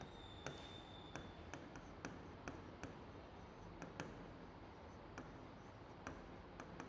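Writing on a board: faint, irregular taps and short scratches as the letters are stroked out.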